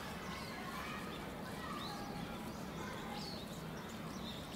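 Outdoor background of small birds chirping now and then over a steady low hum, with faint distant voices.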